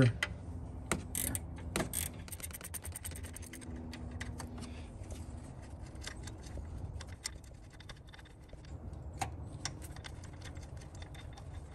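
Scattered light metallic clicks and clinks of a hand wrench on the alternator pivot bolt as it is worked loose, some in quick little clusters, over a low steady hum.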